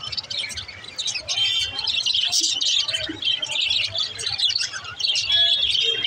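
A flock of budgerigars chirping and warbling together: a dense, continuous high twittering chatter that gets louder about a second in.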